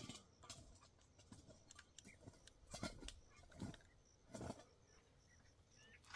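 Near silence, broken by a few faint, short knocks and clicks.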